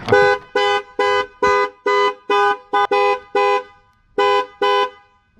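Vehicle horn sounding in a quick series of short two-tone blasts, about two a second, then a pause of nearly a second and two more blasts.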